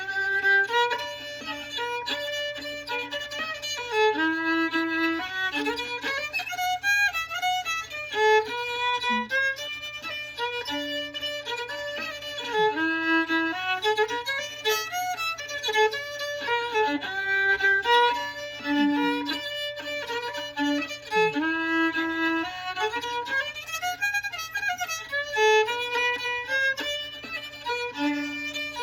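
Solo fiddle playing a fiddle tune in the key of G, a quick melody of running notes and double stops bowed without pause.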